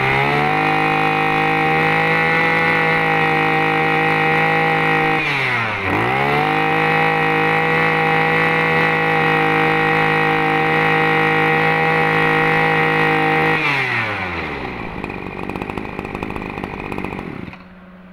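Small two-stroke engine of a Maruyama 20cc brush cutter held at full throttle. About five seconds in the throttle is let off briefly and the engine drops toward idle, then revs straight back up; near the end it is throttled down to idle.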